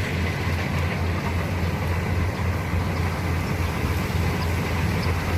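Engine of a rice harvesting machine running steadily, a low drone with no change in pace.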